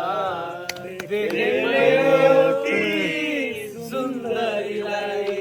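People singing a Nepali song, holding long drawn-out notes.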